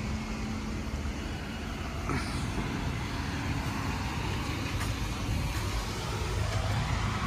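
Steady low rumble of motor vehicles and road traffic, with a faint brief rising whine about two seconds in.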